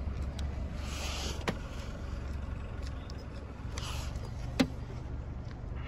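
Two sharp clicks a few seconds apart as a paint thickness gauge's probe is pressed against the car's painted rear bumper, over a steady low rumble.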